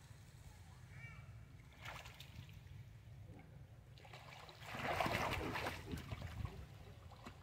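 Monkeys swimming in a pool, splashing in the water, with a louder burst of splashing and sloshing just before the halfway point that lasts about a second and a half, over a low steady rumble.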